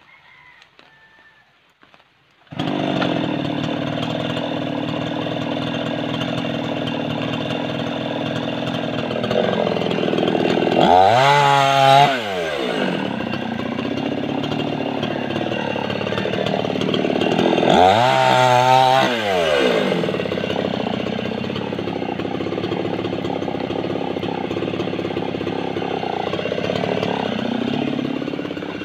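Mini chainsaw cutting in suddenly about two and a half seconds in and running steadily. It is revved twice, about a third and two-thirds of the way in, the pitch climbing and then dropping away sharply each time.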